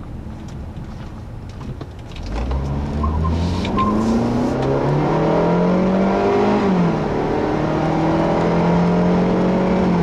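2011 Hyundai Sonata's 2.4-litre direct-injection four-cylinder engine, heard from inside the cabin, pulling the car away under acceleration. The engine note rises from about two seconds in, drops about two-thirds of the way through as the six-speed automatic shifts up, then holds steady.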